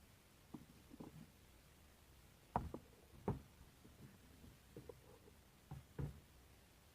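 A few faint, scattered knocks and clicks, about half a dozen, the two loudest around the middle and a pair near the end, like something small being handled.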